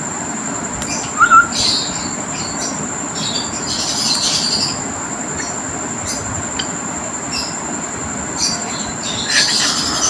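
Pet cockatiel giving short scattered chirps and squawks, the loudest about a second in, over a steady background hiss with a constant high whine.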